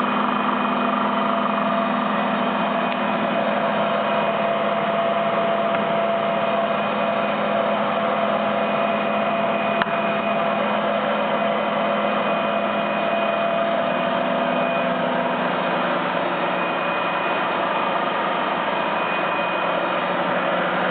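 Colchester Master 2500 centre lathe running steadily, its motor and geared headstock giving an even mechanical hum with several held whining tones. A single sharp click about ten seconds in.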